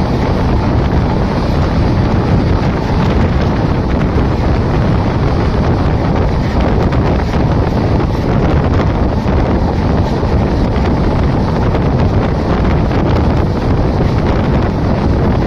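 Steady rush of wind buffeting the microphone from a moving passenger express train, with the train's running noise underneath. The noise is loud and even throughout, heaviest in the low range, with no distinct clicks or horn.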